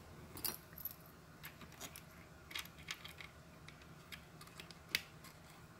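Small metal screws and fittings clinking and clicking as they are handled and fitted by hand into a plastic enclosure: a scatter of light taps, with one sharper click about five seconds in.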